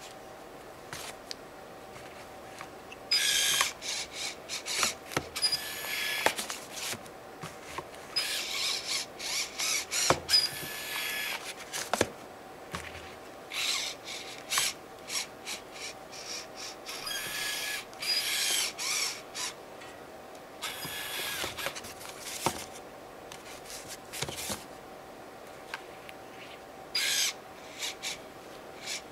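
Small electric motor whirring in repeated short bursts of about half a second to a second and a half, with a few sharp clicks between them, over a faint steady hum.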